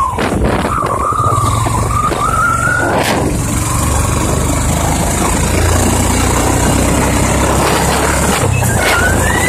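A vehicle moving along a road: steady engine and road rumble with a thin whine that wavers and climbs in pitch, and a few brief knocks.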